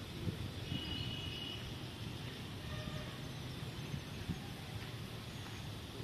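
Outdoor park ambience: a steady low rumble with a short, thin high bird call about a second in and a few faint chirps after it.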